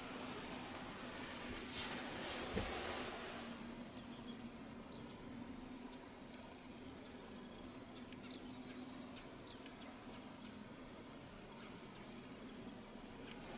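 Faint open-field ambience with scattered short, high chirps of small birds and a steady low hum underneath; a soft thump about two and a half seconds in.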